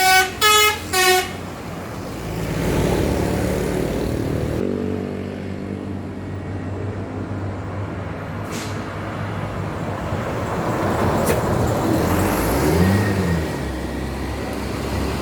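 A passing bus sounds its multi-tone "telolet" (basuri) horn: three short notes within the first second, the middle one higher. A bus engine and road noise follow, with the engine pitch rising and falling once near the end.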